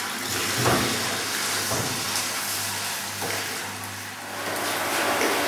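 Goat's milk pouring in a thick stream from a metal pitcher into a large aluminium bowl, a steady splashing gush, with a few light knocks of metal.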